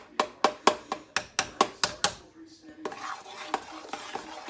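A utensil stirring mashed potatoes in a metal pan. For about the first two seconds it knocks against the pan in a quick run of clicks, about four a second. From about three seconds in it gives way to a steady scraping and rubbing against the pan.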